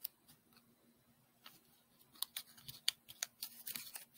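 Faint crinkling and ticking of a sheet of origami paper as fingers crease a flap and tuck it inside; sparse at first, busier from about two seconds in.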